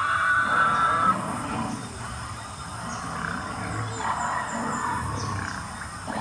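Recorded dinosaur growls and roars played from the speakers of animatronic dinosaur figures, a low rumble that comes and goes several times. A steady high drone sounds over them and stops about a second in.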